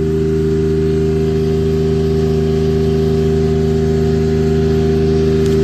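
Pony motor, the small auxiliary engine that powers the boom lift, running steadily at a constant speed.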